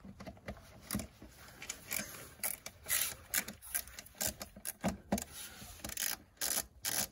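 Phillips screwdriver backing out the mass airflow sensor's two small retaining screws from its plastic housing: irregular short scrapes, ticks and clicks of the bit turning in the screw heads.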